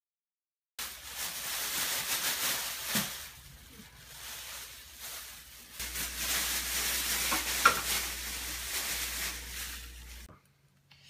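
Thin plastic grocery bags rustling and crinkling as a toddler grabs and pulls at them, starting about a second in, with one sharp louder crackle about three-quarters of the way through.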